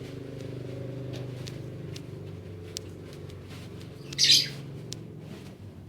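A bird gives one short, loud, high call about four seconds in, over a steady low hum.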